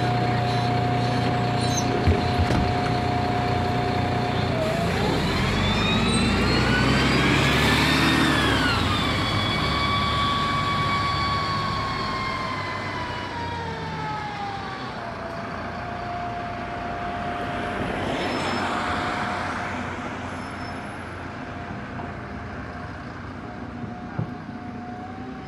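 City bus drivetrain whining and running: the whine rises in pitch as the bus accelerates, drops sharply about eight seconds in at a gear change, then sinks slowly and settles to a steady whine as it slows, over a constant engine rumble.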